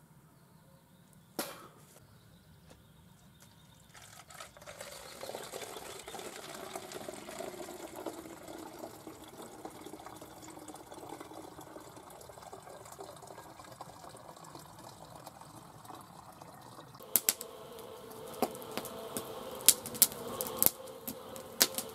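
Water running, starting about four seconds in and lasting about twelve seconds, with a tone under it that slowly falls. Near the end a run of sharp clicks follows.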